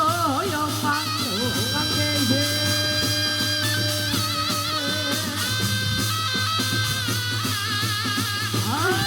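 Korean shamanic ritual music: a sustained, wavering melody line with vibrato over a steady percussion beat.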